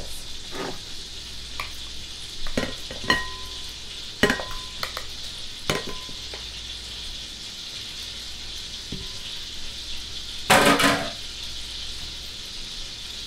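Olive oil and butter sizzling steadily in a frying pan, with tongs clicking and raw chicken leg quarters dropping into a glass bowl in a few separate knocks, some leaving a brief glassy ring. A louder clatter comes about ten and a half seconds in.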